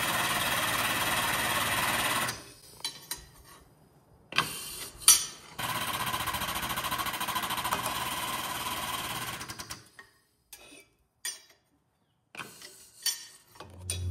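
Drill press boring through steel flat bar in two runs, with a steady busy grinding-whirr. Between the runs come a few sharp metallic clicks as the bar is handled, the loudest about five seconds in. The work stops a little before the end, leaving only a few faint knocks.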